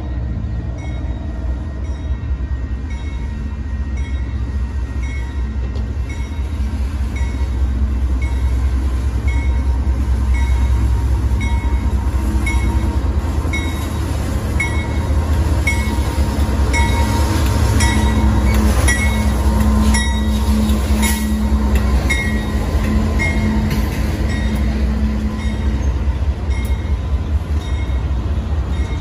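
Union Pacific freight train drawing near and passing: a steady low rumble of the diesel locomotives grows louder, then continues as the freight cars roll by. A regular high clink sounds about every two-thirds of a second through most of it.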